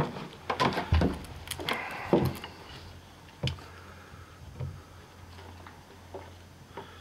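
A carpenter handling a wooden folding rule and pencil against a hewn log: a quick run of sharp knocks and clicks in the first couple of seconds, then a few light, scattered taps. A steady low hum runs underneath.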